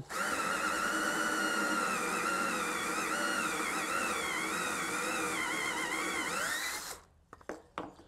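Cordless drill boring a hole through a block of wood with a large wood-boring bit. The motor whine wavers as the bit bites, then stops about seven seconds in.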